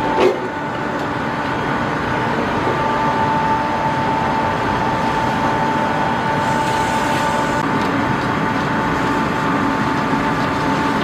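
Steady machinery noise aboard an Arleigh Burke-class destroyer under way, a constant hum with a high, steady whine, with a brief knock just at the start.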